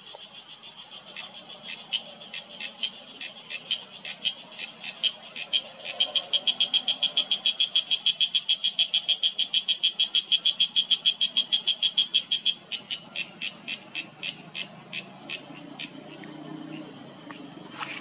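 Cicada calling: a string of sharp, buzzing pulses that speed up over the first few seconds into a fast, even run of about six a second, then slow, thin out and fade away near the end.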